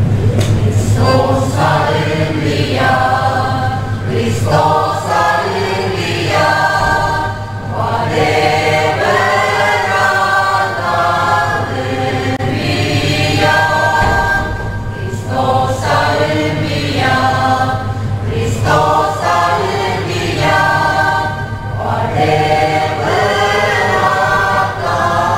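Mixed choir of women and men singing a sacred song in long phrases with short breaks between, to accordion accompaniment.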